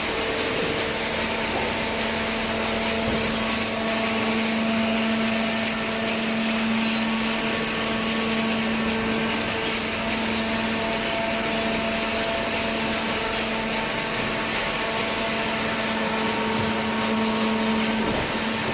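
Automatic baler running steadily, a continuous machine hum with a steady drone under a noisy whir.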